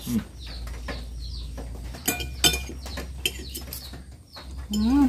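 Metal fork and spoon clinking and scraping against a ceramic plate during eating, in scattered sharp clinks. Birds chirp in the background.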